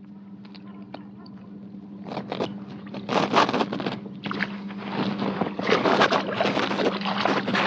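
A hooked kokanee salmon splashing at the water's surface beside the kayak as it is brought to the landing net; the splashing starts about two seconds in and grows louder and more frequent.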